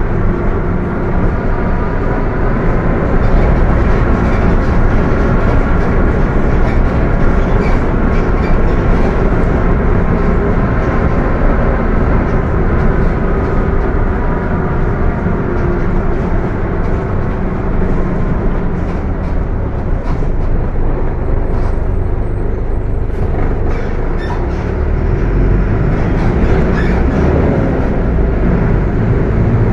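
Mercedes-Benz OF 1721 bus under way, its transmission whining loudly over the engine noise. The whine rises and falls in pitch, fades a little past the middle and climbs again near the end.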